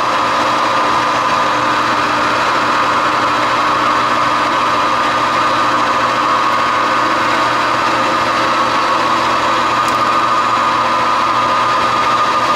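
Metal lathe running steadily with a constant whine, turning down a small steel screw blank.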